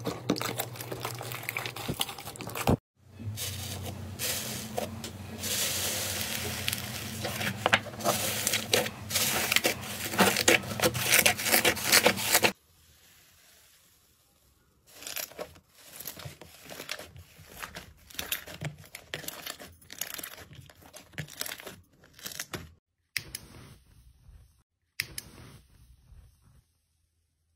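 Hands squishing, stretching and scraping slime, making dense crackling, popping and tearing sounds. The crackling is loudest and densest in the first half, stops abruptly, and gives way to quieter, scattered pops and clicks.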